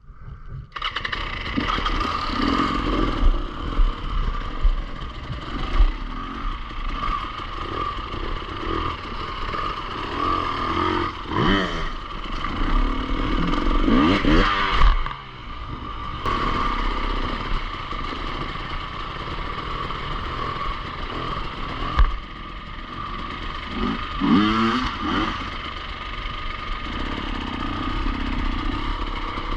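Enduro motorcycle engine running, blipped up and back down in a few quick revs, with one sharp knock partway through.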